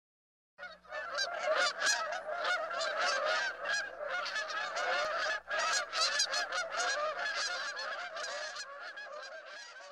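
A flock of geese honking in flight, many calls overlapping. It starts about half a second in and slowly fades toward the end.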